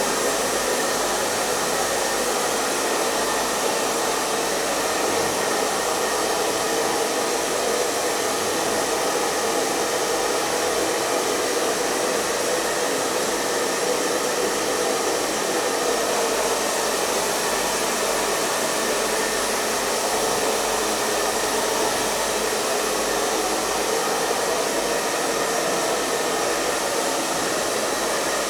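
Hair dryer blowing steadily: a constant, unchanging rush of air with a fan-motor hum.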